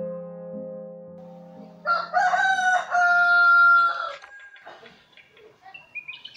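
A rooster crowing once, loud and about two seconds long, a couple of seconds in, as a piano note fades out at the start. Small birds chirp faintly near the end.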